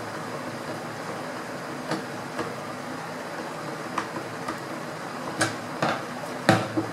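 Screwdriver working a screw in an air rifle's stock: scattered small metal clicks and taps. Several louder knocks come near the end as the tool and rifle are handled on a hard tabletop, over a steady background hum.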